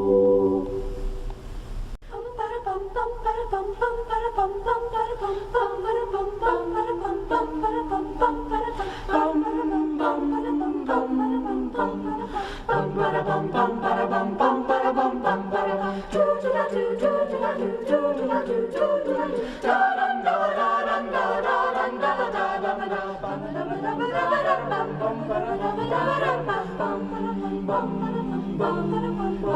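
High school choir singing a cappella in several parts. A held chord ends in the first second, and after a brief break the voices come back in with moving harmonies.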